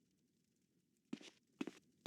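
Footsteps beginning about a second in, after near silence: a step roughly every half second at an even walking pace.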